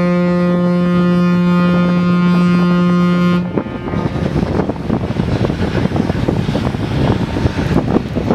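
A ship's horn sounding one long, steady blast that cuts off about three and a half seconds in. After it, wind buffets the microphone.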